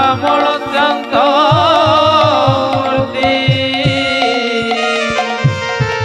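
Live devotional song for a Ramlila stage play. A singer holds long, wavering notes over drum strokes at a steady beat of about three a second. Held instrumental tones carry on from about halfway, and the drum pauses briefly near the end.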